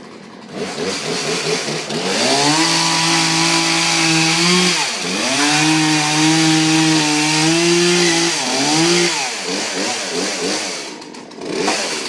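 Two-stroke chainsaw revved up to a high, steady full-throttle pitch. It drops away and comes straight back up about halfway through, dips again, then winds down, with a short blip of throttle just before the end.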